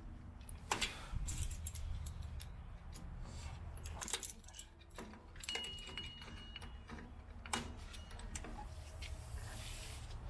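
Light metallic clicks and clinks of drum brake hardware, springs and small steel parts, being handled and fitted on the brake assembly. There is a brief high metallic ring about halfway through and a short hiss near the end.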